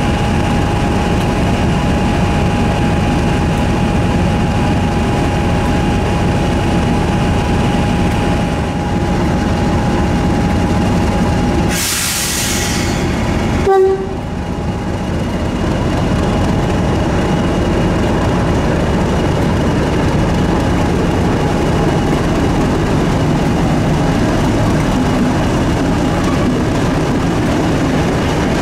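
British Rail Class 50 diesel locomotive's English Electric 16-cylinder engine running steadily, with a thin whistling tone over it. About twelve seconds in comes a loud hiss of about a second and a half, then a brief horn note, and the engine runs on as the locomotive moves off slowly.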